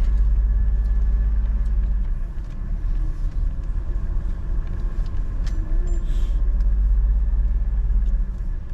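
A steady low rumble with an uneven, gusty level that eases near the end, and a few faint clicks over it.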